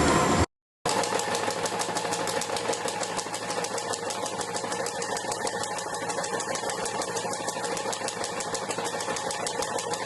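A machine running with a rapid, even ticking, about ten ticks a second, over a steady hum.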